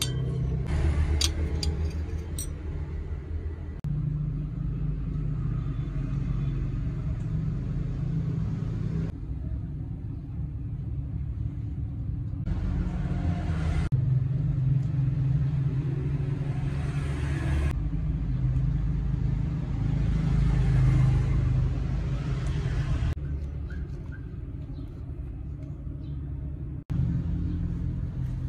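A few sharp clinks of a steel knife and fork against a china plate in the first couple of seconds, over a low, steady rumble of background noise that shifts abruptly several times.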